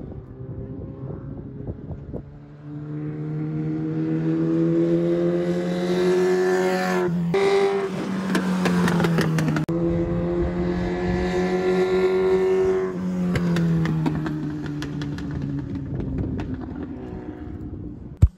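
Legends race car, powered by a Yamaha motorcycle engine, running laps on an oval track. The engine note builds as it approaches and drops sharply in pitch as it passes about seven seconds in. It runs strong again, then falls away and fades near the end.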